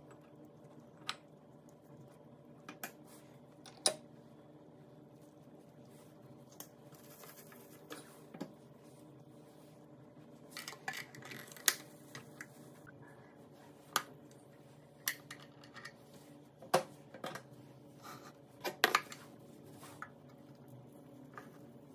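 Scattered light clicks, taps and knocks of hands and utensils handling food at an electric sandwich maker, over a faint steady hum. The sharpest taps cluster around the middle and again near the end.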